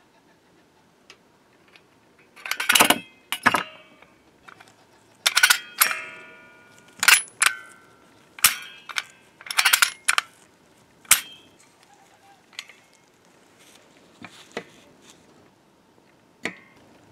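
Cast iron door hardware (an old foot bolt and its strike plate) handled and set down on a wooden workbench: a series of sharp metallic clinks and knocks, some ringing briefly. They are loudest and most frequent in the first half, with a few fainter ones after.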